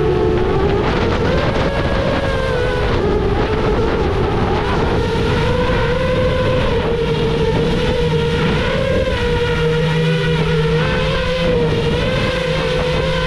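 Small drone's propellers and motors whining steadily, the pitch wavering slightly as the drone holds and turns in low flight, with wind rumble on the microphone.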